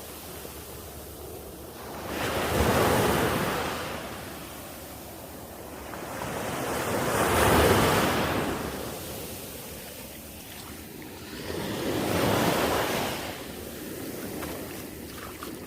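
Sea waves breaking on a beach, three swells of surf about five seconds apart over a steady wash of water.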